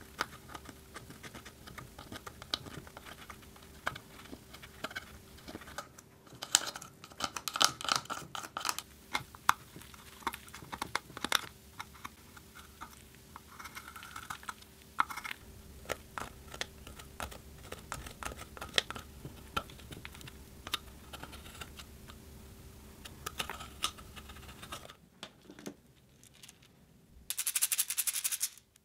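Plastic knife scraping and tapping at pressed eyeshadow in a palette: an uneven run of small scratches and clicks. Shortly before the end, a brief rattle of small beads poured from a plastic egg into a glass bowl.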